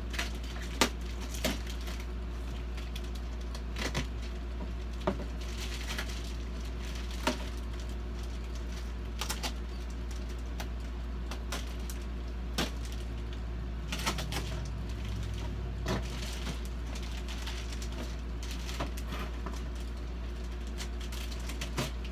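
A cardboard box being cut open with a utility knife and its paper and plastic packing handled: scattered sharp clicks, scrapes and rustles at irregular intervals, over a steady low hum.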